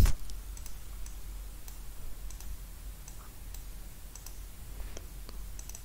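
Computer mouse clicking: about ten faint, scattered clicks at uneven intervals over a steady low hum.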